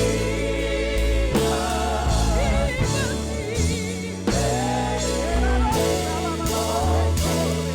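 Live gospel praise-and-worship music: singing voices over keyboard, bass and a drum kit keeping a steady beat.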